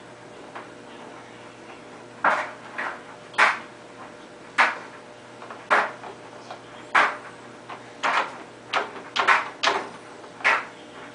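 Dishes and a dishwasher's racks clattering and knocking as the dishwasher is loaded: a string of sharp separate knocks, mostly about a second apart, coming faster for a moment near the end.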